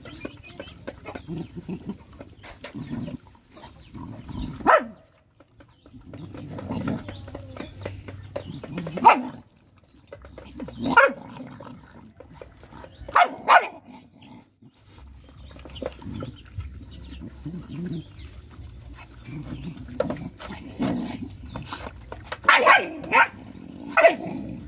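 Several dogs and puppies eating from one metal bowl, with a continuous low rough noise of eating and jostling. Short, sharp barks come every few seconds, with a cluster of three near the end.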